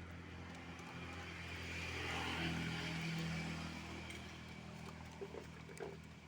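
A motor vehicle passing, its engine hum and tyre noise swelling to a peak about two to three seconds in and then fading.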